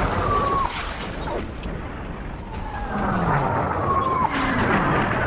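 Mocked-up artillery bombardment: two falling whistles of incoming shells, each followed by explosions, over a steady low rumble.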